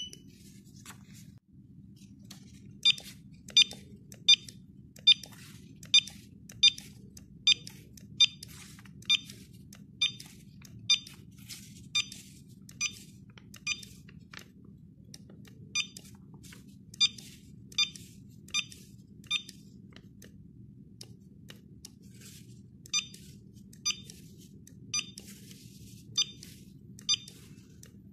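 CINO A780 handheld barcode scanner giving its short, high good-read beep again and again, about one beep every 0.8 s as it decodes small codes one after another. There are three runs of beeps, with gaps about halfway through and again near the end.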